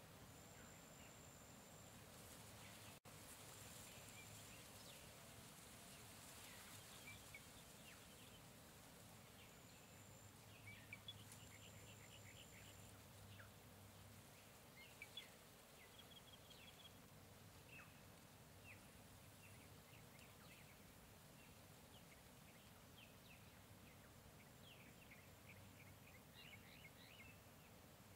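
Faint jungle ambience: many short, scattered bird chirps over a soft steady hiss, with a high thin tone that comes and goes a few times.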